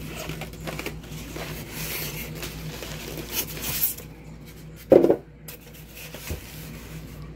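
Styrofoam packing pieces rubbing and scraping against each other as the foam lid is lifted off a speaker box, with one brief, loud rub about five seconds in, over a steady low hum.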